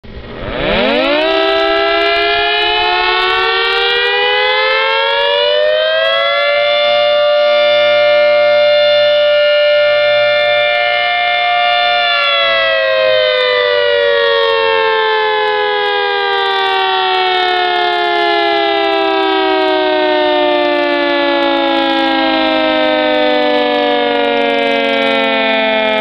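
Civil defense siren sounding as an emergency alert: it winds up in pitch over about six seconds, holds one steady wail for about six seconds, then slowly winds down, still falling at the end.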